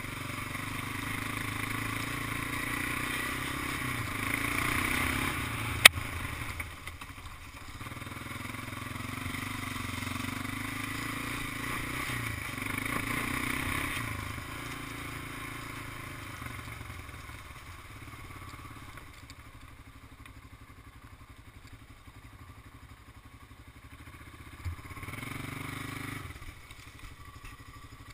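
Big Honda ATV's engine running as it is ridden, rising and easing off with the throttle. A single sharp knock comes about six seconds in.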